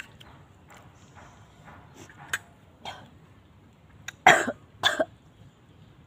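A woman coughing: two hard coughs about four and five seconds in, with a couple of smaller coughs or throat-clearing sounds before them.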